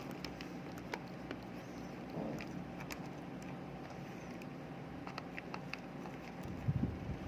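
Scattered light clicks and taps of a plastic rechargeable flashlight being handled and opened up, over a steady low hum, with a dull knock near the end.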